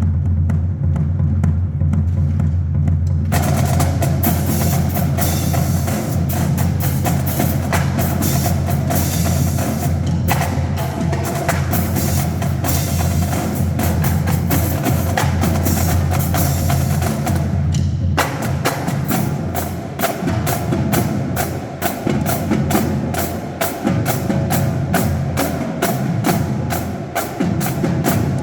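Marching drumline playing a percussion piece. For the first three seconds it is mostly low drum sound, then the full line comes in with dense, loud drum strokes; about 18 seconds in it changes to a run of evenly spaced sharp hits, several a second.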